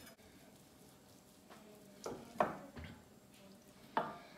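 Knife knocking on a wooden cutting board while brisket is sliced: a few short knocks, two about two seconds in and one near the end.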